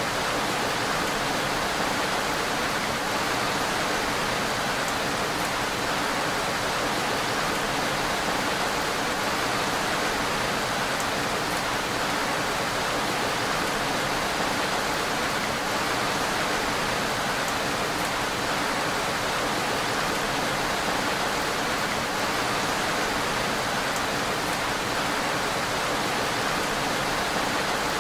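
Steady rain falling, an even hiss that runs unchanged without pauses.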